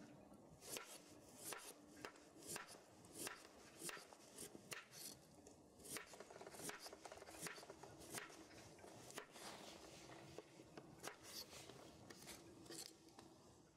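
Knife cutting food on a wooden cutting board: faint, irregular strokes about one or two a second.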